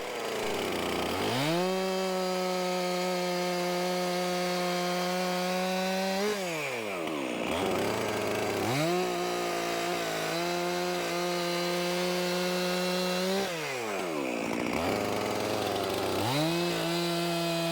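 Stihl MS 400 C two-stroke chainsaw cutting logs: the engine revs up and holds a steady high pitch under load through a cut, then drops back to a lower speed, three times in all, the third run still going at the end.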